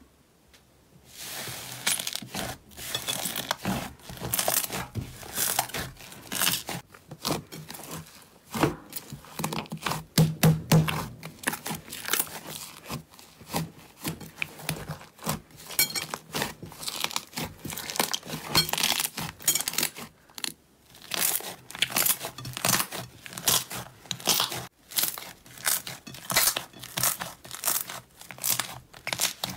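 Thick purple slime being kneaded, squeezed and stretched by hand in a glass bowl, giving dense, irregular crackling, popping and tearing sounds. They begin about a second in, after a short quiet.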